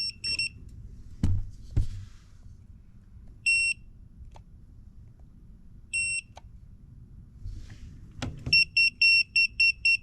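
WGGE WG-1005B non-contact voltage tester's buzzer beeping as it senses AC voltage at an outlet: a few scattered single high beeps, then a fast run of about four beeps a second near the end, the quicker beeping marking a stronger or closer voltage. A few soft knocks from handling the tester against the outlet.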